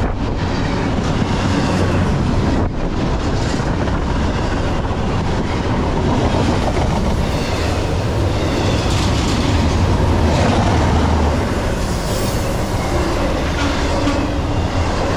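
Double-stack intermodal freight train passing: loaded container well cars rolling on steel rails, a loud, steady run of wheel and car noise.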